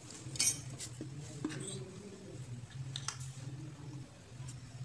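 Handling noise: a few light clicks and rustles as wires and the plastic extension board are worked by hand, over a low steady hum.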